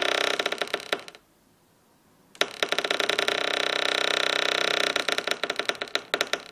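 Wooden door's hinges squeaking and creaking as the door swings, a grating run of rapid stick-slip pulses. One creak trails off about a second in, and after a short pause a longer, loud creak of about four seconds follows.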